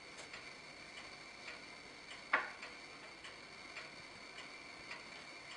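Faint, evenly spaced ticking, a little under two ticks a second, with one sharper, louder click a little over two seconds in.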